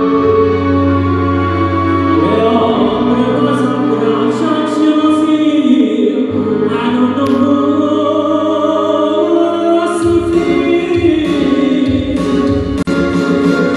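A man singing live into a handheld microphone over amplified instrumental backing, with long-held bass notes that change every couple of seconds.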